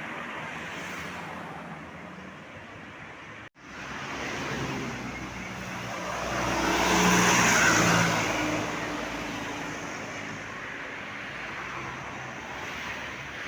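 Road traffic noise with a vehicle passing close by, swelling to its loudest about seven seconds in and then fading. The sound cuts out for an instant about three and a half seconds in.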